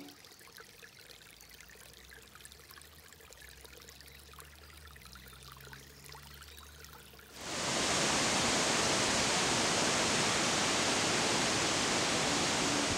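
Shallow woodland brook trickling softly over stones and leaf litter. About seven seconds in, a much louder, even rush of water cuts in abruptly and runs on.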